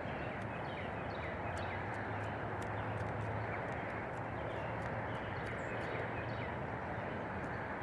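Cuckoo Marans chickens pecking at feed: quick, irregular little taps over a steady background hiss.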